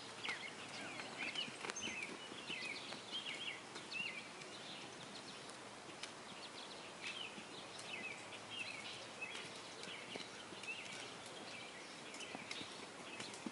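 Small birds chirping and twittering in quick runs of short notes, busiest in the first few seconds and again in the middle, over the soft hoofbeats of a ridden Quarter Horse moving on arena sand.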